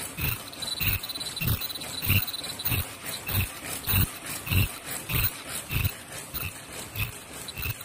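Fully automatic face mask production machine running, with a regular low thump about every 0.6 seconds, each carrying a click, over a faint steady high whine.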